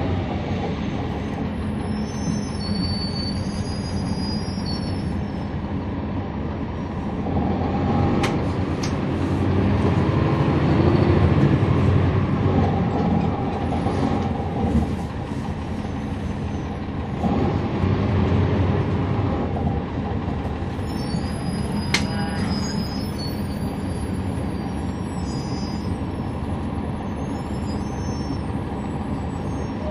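A NABI 40-foot transit bus's Cummins ISL9 inline-six diesel running, heard from on board, steady and strong, swelling louder about 8 seconds in, again around 11 seconds and around 18 seconds. A sharp click sounds about 22 seconds in.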